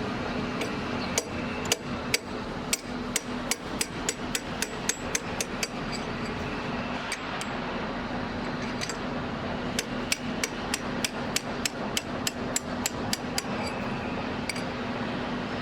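Metal-on-metal hammer blows knocking out a steel pin on a pile driver's drill-rod mount. The blows come in two quick runs of several strikes a second, speeding up, with a pause of a few seconds between, and one last blow near the end.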